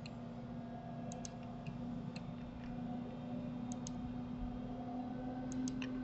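Scattered light clicks from a computer mouse and keyboard, mostly in quick pairs, over a steady low hum.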